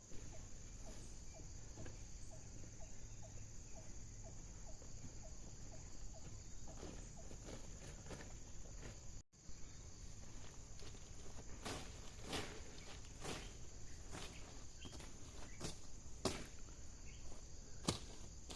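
Footsteps outdoors, a string of short sharp steps in the second half. In the first few seconds there is a faint high chirp repeated about three times a second.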